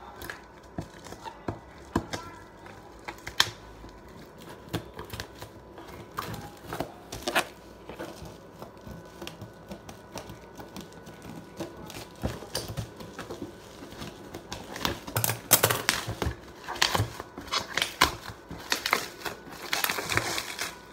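Bubble wrap and plastic packaging on a cardboard tripod box being cut with scissors and pulled away by hand: irregular crinkling, rustling and small clicks, busier and louder in the last few seconds.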